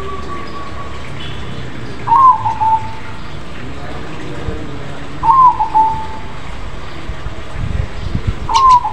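Cross-bred zebra dove (perkutut krosing) cooing loudly: three short coo phrases about three seconds apart, each a quick rising note that drops into a trailing coo.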